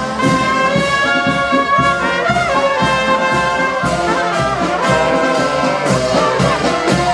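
Marching brass band playing in the street: trumpets and trombones holding melody notes over a steady drum beat.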